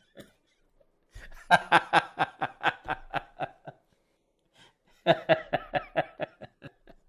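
A man laughing heartily in two bouts of quick, repeated 'ha-ha' pulses. The first bout starts about a second in, and the second about five seconds in.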